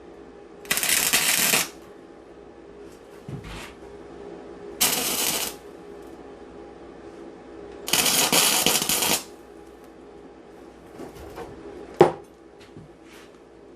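Welder laying three short tack welds on the sheet-steel trunk lid, each a crackling burst of about a second, with pauses between. A single sharp click comes near the end.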